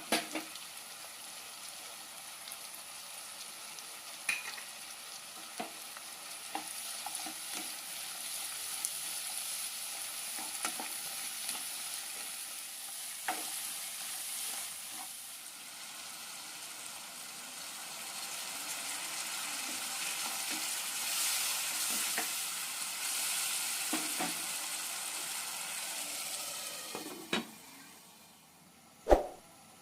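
Food frying and sizzling in a pan while being stirred, with scattered clinks of the spoon against the pan. The sizzle fades near the end and a couple of sharper knocks follow.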